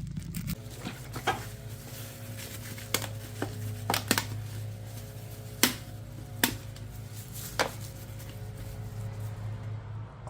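Sharp clicks and knocks, about eight of them at uneven intervals, from handling oil bottles and caps while refilling the engine with oil, over a steady low hum.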